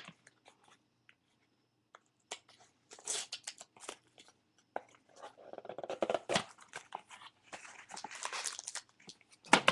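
Packaging of a sealed hockey card box being torn and crinkled open by hand: a few scattered crackles at first, then irregular tearing and rustling that grows busier from about halfway through.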